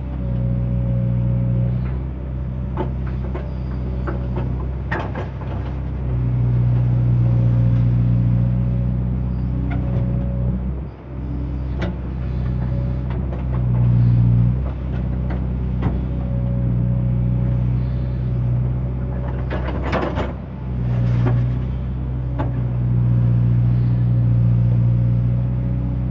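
JCB excavator's diesel engine running steadily at working speed, with a steady higher whine above the engine note. Scattered metallic clanks and knocks come through, and the engine note dips briefly twice.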